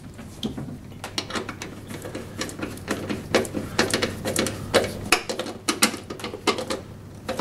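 A 10 mm spanner tightening a bolt and nylock nut on a lawnmower's metal belt guard: a run of sharp metallic clicks, several a second, as the spanner is worked back and forth.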